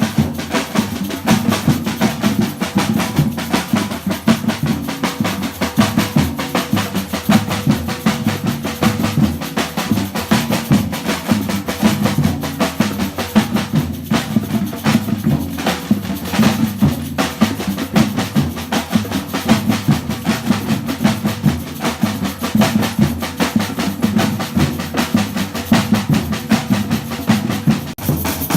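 Batucada drum ensemble playing a steady, driving groove: deep surdo bass drums under snare-type drums and other percussion striking in a dense, even rhythm.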